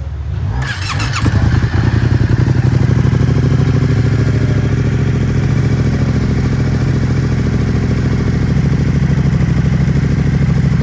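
Yamaha Tracer 700's parallel-twin engine idling through a newly fitted SC-Project full exhaust system, a loud, even beat. It grows louder over the first second or so, then holds steady.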